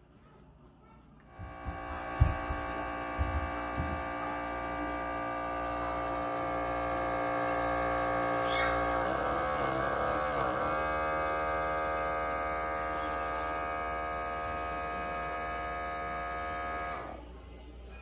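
Outin portable espresso machine's small electric pump running with a steady hum as it pushes water through the coffee into the cup below, extracting espresso. A few clicks come as it starts, the pitch wavers briefly about halfway, and it cuts off abruptly near the end.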